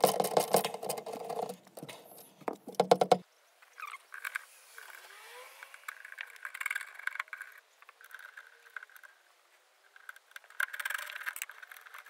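Screwdriver clicking rapidly as it turns the screws holding the factory Bang & Olufsen subwoofer, stopping about three seconds in. After that, fainter scraping and rustling of the wiring loom being handled around the speaker.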